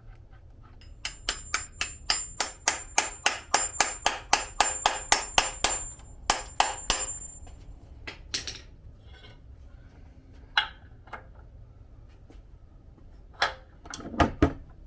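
A hammer striking metal in quick, even blows, about three to four a second for some six seconds, with a high metallic ring over them. A few scattered knocks follow near the end. The work is on a stuck bolt of a Subaru EJ207 engine, which ends up stripped.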